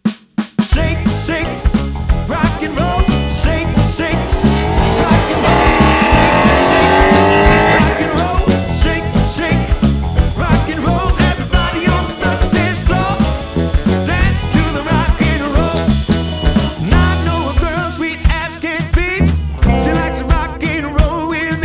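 Background rock music with a steady beat, with a swell of rising tones about a quarter of the way in.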